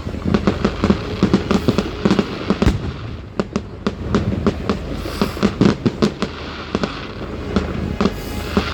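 Fireworks display: a rapid, irregular string of bangs from many shells bursting in close succession.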